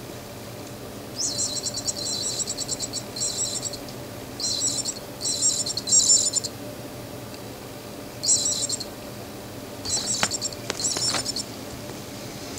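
Electronic bird-chirp sound from a cat toy: repeated short bursts of high, rapid chirping trills, starting about a second in, with a few sharp clicks near the end.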